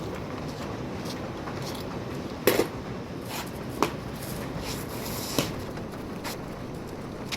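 Handling noise from taping air-conditioner piping: three sharp clicks or knocks, the first the loudest, spaced a little over a second apart, over a steady background hiss.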